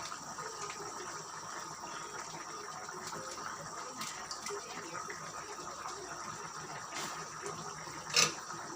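Chicken in tomato and oyster sauce simmering in a pot over a low flame: a steady bubbling hiss with faint small ticks. A single sharp click about eight seconds in, the loudest moment.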